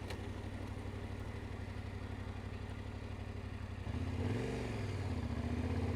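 Yamaha Ténéré 700 parallel-twin engine running at low revs. About four seconds in it gets louder, with a brief dip and rise in pitch, then settles to a steady note.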